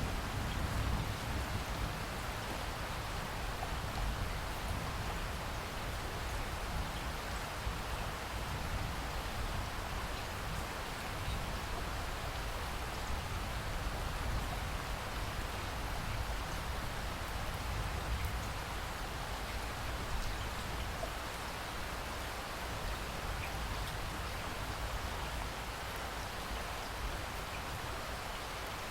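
Steady rain falling, with a low thunder rumble dying away in the first second or two.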